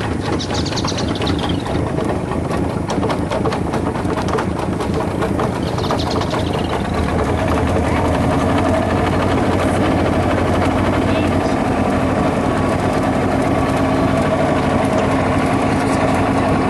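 Boat's outboard motor running steadily under way, getting a little louder from about eight seconds in.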